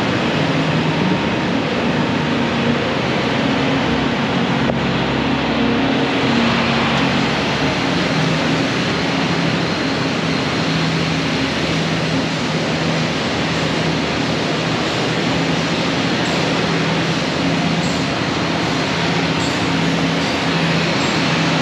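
Steady engine drone over a constant noisy rumble, with a low hum that holds its pitch.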